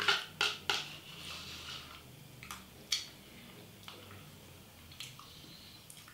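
A metal spoon scraping and clicking against the inside of a small dessert cup, with sharp clicks, three in quick succession at the start, then single ones every second or so, and soft eating sounds in between.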